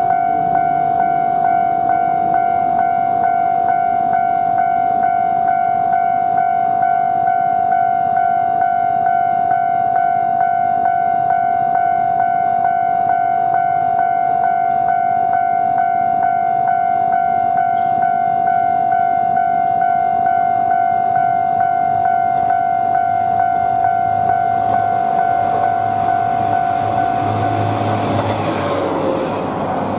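Japanese level-crossing alarm ringing steadily in an even, repeating pattern. In the last few seconds a JR Shikoku 1000 series single-car diesel railcar passes close by, its engine and wheels rising over the alarm.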